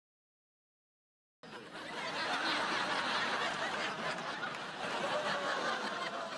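Sitcom laugh track: a studio audience's canned laughter that starts abruptly about a second and a half in after dead silence, swells quickly and holds, easing off slightly near the end.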